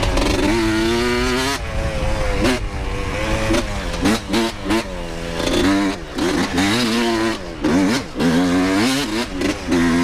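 Dirt bike engine revving up and down as the bike is ridden, its pitch climbing and dropping again and again with short throttle-offs between.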